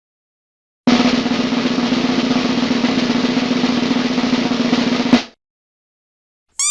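Snare drum roll lasting about four seconds, ending in one louder hit, with silence before and after it.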